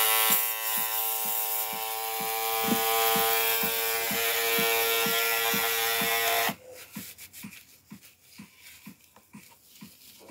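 Aerosol spray hissing in one long steady burst onto a foil shaver's head, with a whistling tone on top; it cuts off about six and a half seconds in.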